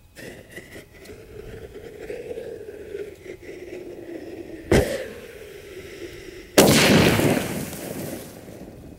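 Consumer canister firework shell going off inside an HDPE mortar tube. A burning fuse hisses for about four and a half seconds, then comes a sharp crack. About two seconds later the shell bursts in the tube with a much louder blast and a rushing tail that dies away over a couple of seconds, blowing the tube's base apart.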